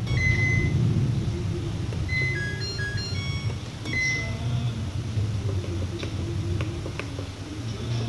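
LG top-loading washing machine's control panel beeping as it is switched on: a long beep, then a short electronic start-up tune of beeps at several pitches, and another beep about four seconds in. A low steady rumble runs underneath, with a few faint clicks later on.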